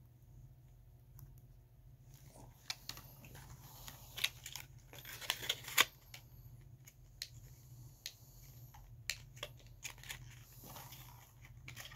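Small cardboard-and-plastic lure package being handled: irregular clicks, taps and rustles start about two seconds in, with the loudest a sharp snap near the middle.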